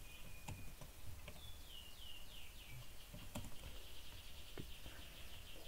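Faint computer-keyboard keystrokes, a few separate clicks, as a line of code is typed. Behind them a bird repeats short, high falling chirps, a few a second, quickening near the end.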